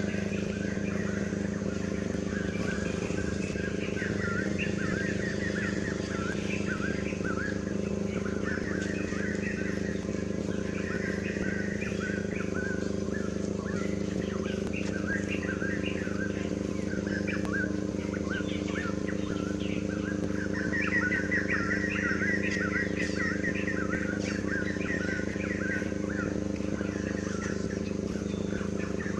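Many short, quick chirps of birds going on continuously, busiest a little past the middle, over a steady low hum.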